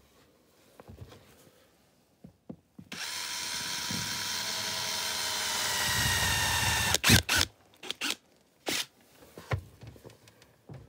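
Power drill driving a screw-in carbide ice stud into a rubber boot sole: the motor whines steadily for about four seconds, dropping slightly in pitch and getting louder before it stops. A few sharp knocks follow.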